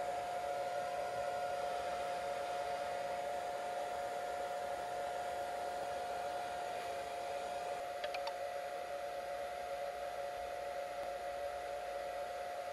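Handheld hair dryer running steadily, blowing air with a constant whine over the rush of air, drying a wet dog's coat after a bath.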